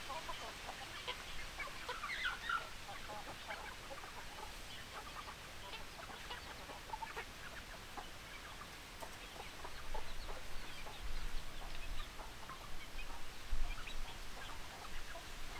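A flock of chickens clucking, many short overlapping calls scattered throughout, over a steady low background hum.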